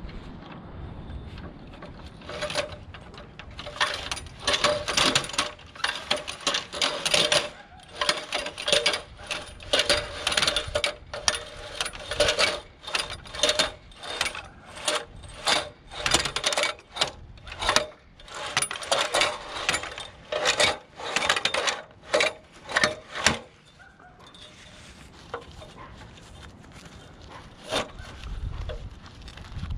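Fibreglass extension ladder being raised on its rope and pulley: fast runs of metallic clacks and rattles as the aluminium rungs and rung locks slide past each other. The clattering stops about three-quarters of the way through, leaving only a few single clicks.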